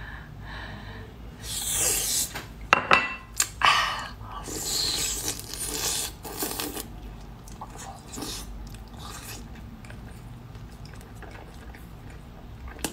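Close-up eating sounds of a person biting into and chewing Australian rock lobster meat: several loud, wet, crunchy bursts and sharp clicks in the first seven seconds, then quieter chewing.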